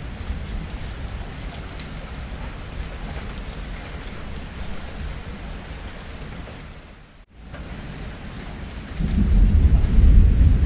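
Steady rain hiss. About seven seconds in it briefly drops out, then about nine seconds in a loud, deep rumble of thunder rolls in over the rain.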